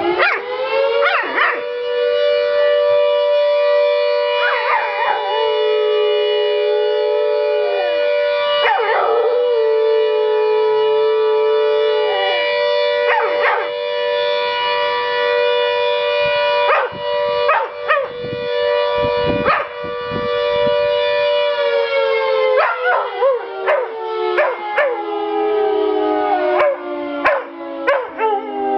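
A dog howling along with a siren. The siren climbs in pitch near the start, holds a steady two-note tone, then slowly winds down over the last several seconds. The dog's drawn-out howls come every few seconds while the siren holds, and turn into rapid short yips and howls as it winds down.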